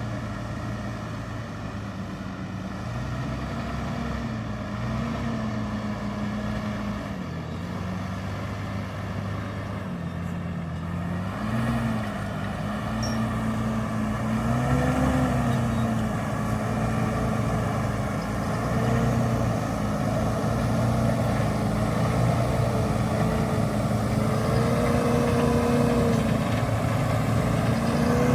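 Valtra Q Series tractor engine running under load, pulling a Lemken five-furrow plough. Its pitch wavers and dips, then rises and grows louder about halfway through.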